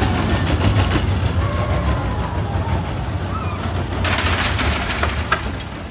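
The Barnstormer junior roller coaster's train running past on its steel track with a steady low rumble. A louder rush of noise comes about four seconds in, then fades near the end.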